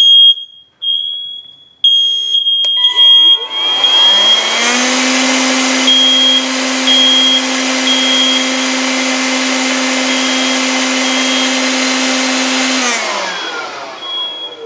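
A First Alert SC9120B smoke alarm's piezo sounder beeps on and off at a high pitch, set off by canned test smoke. About three seconds in, an electric blower spins up with a rising whine and runs steadily as the loudest sound. It winds down with a falling pitch near the end while the alarm keeps beeping.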